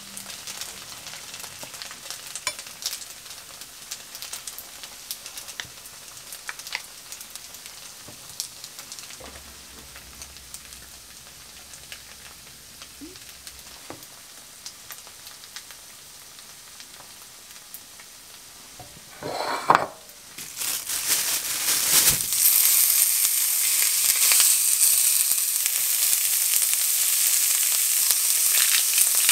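Thin slices of raw beef sizzling loudly in a hot non-stick frying pan, the sizzle starting about two-thirds of the way in after a short loud sound. Before that, only faint crackles and small clicks.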